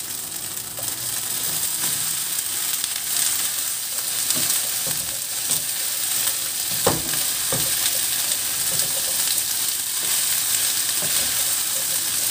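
Cut yard-long beans (sitaw) sizzling in hot oil with browned ground pork in a nonstick wok, just after they are tipped in. A wooden spatula stirs them and now and then knocks against the pan.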